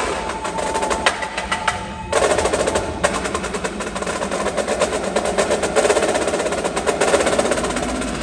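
Indoor percussion ensemble playing, marching snare and tenor drums with front-ensemble mallet percussion. Separate sharp hits give way, about two seconds in, to a dense drum roll of fast, tightly packed strokes.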